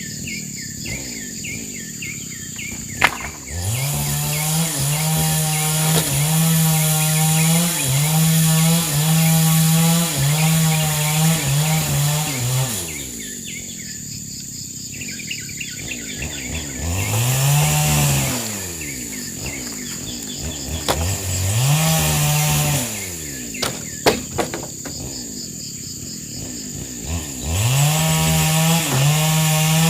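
Chainsaw idling and revved hard in bursts, cutting wood. There is one long burst of about eight seconds a few seconds in, shorter ones around the middle, and another near the end, with the engine dropping back to idle between them.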